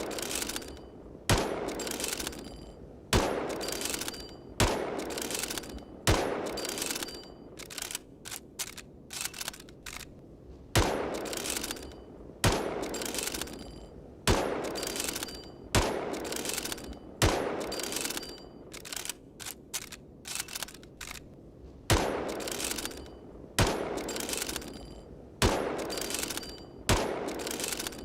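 Mosin-Nagant bolt-action rifle firing single shots about every one and a half seconds, each trailing off, in strings of five. Between strings, twice, comes a quick run of short metallic clicks, the rifle being reloaded.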